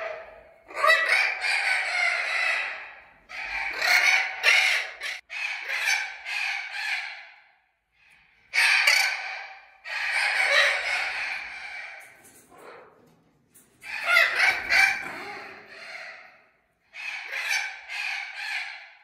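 Young Spix's macaws calling loudly, in bouts of a few seconds each with short pauses between.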